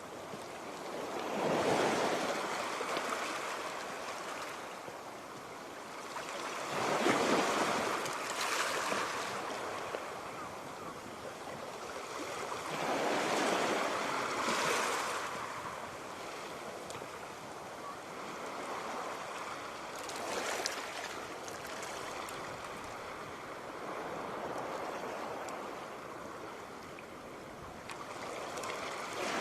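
Sea waves washing onto the shore, each surge rising and falling away every five or six seconds over a constant hiss of surf.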